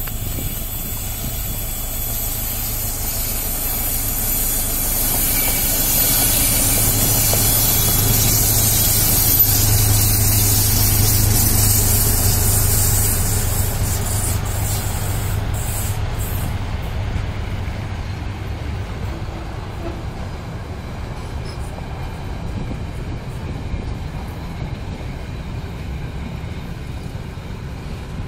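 SM42 diesel-electric shunting locomotive running under load as it hauls a freight train past, with a steady low engine hum that is loudest about ten seconds in. As the locomotive goes by, the sound falls away to the rumble of freight wagons rolling past on the rails.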